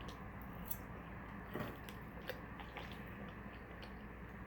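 Faint eating sounds: quiet chewing with a few small, sharp clicks and smacks spaced irregularly, the clearest about a second and a half in.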